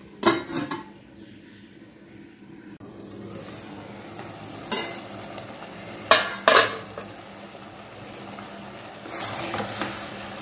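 A steel lid clinks as it is lifted off a kadai. Then tamarind pulp bubbles and sizzles steadily in oil as it boils down until the oil floats. A metal ladle clanks against the steel pan a few times, and there is stirring near the end.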